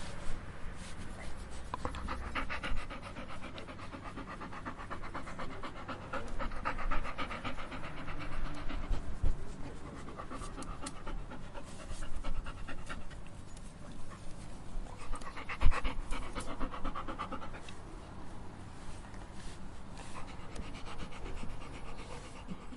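A dog panting rapidly, its quick breaths swelling into louder bouts every few seconds and easing off between them, with a few low bumps, the sharpest about sixteen seconds in.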